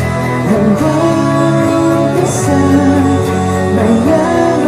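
A man singing a Tagalog pop ballad, held sung notes over guitar accompaniment.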